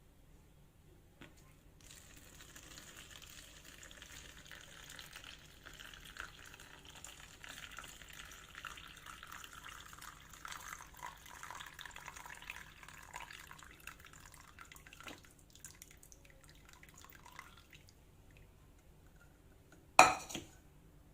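Liquid bubbling in a pot on the heat, a faint crackling hiss that starts a couple of seconds in and dies away well before the end. A single sharp knock near the end.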